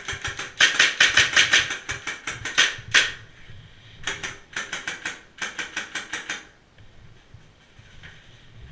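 Airsoft guns firing in rapid bursts of sharp, clicking shots, a long run of about two and a half seconds and then shorter bursts, stopping a couple of seconds before the end.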